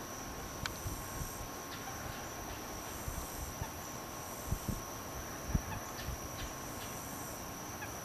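Outdoor ambience through an old camcorder's microphone: steady hiss with a faint high steady whine, a few short low thumps, and a few faint short chirps.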